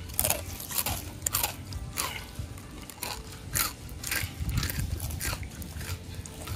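Crisps being crunched and chewed by children, a string of short sharp crunches about two a second.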